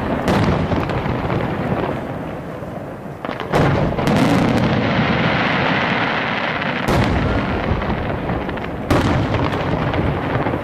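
Aerial firework shells bursting. There are loud booms a few seconds apart, and each trails off into a long rolling rumble.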